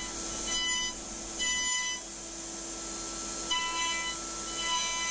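Five-axis CNC milling machine running as it mills a wooden post: a steady high hiss with whining tones that come and go.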